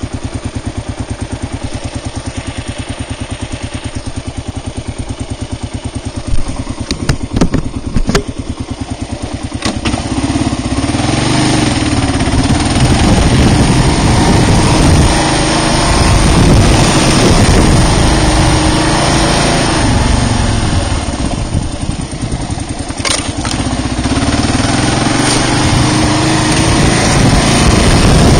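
Kawasaki KLR650's single-cylinder engine idling with an even pulse, with a few sharp knocks about seven and eight seconds in. Then the bike pulls away and rides on, the engine louder and its pitch rising and falling as it revs and shifts.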